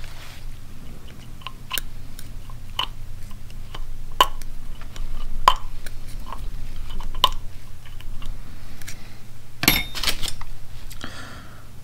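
A small screwdriver tip clicking and scraping inside the bore of a Honda Goldwing GL1500 rear brake master cylinder, in light irregular taps about once a second, as it tries to lever out the seal at the bottom of the bore. A louder clatter comes about ten seconds in, over a steady low hum.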